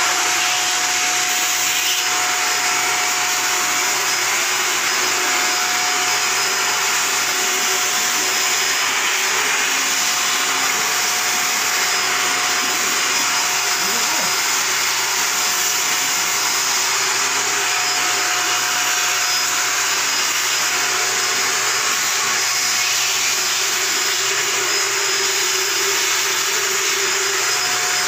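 Corded 600-watt handheld stick vacuum cleaner running steadily: an even rush of air with a constant whine from its electric motor.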